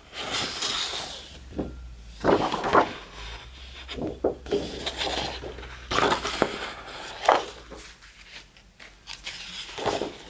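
Sheets of patterned scrapbooking paper rustling and sliding as pages of a paper pad are turned over and handled: several short swishes a second or two apart.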